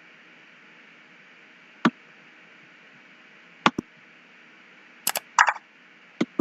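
Computer mouse clicks over a faint steady hiss: a single click about two seconds in, a quick double click near four seconds, then a tight cluster of clicks around five seconds, the mouse-click sound effect playing in the editor preview, and two more clicks near the end.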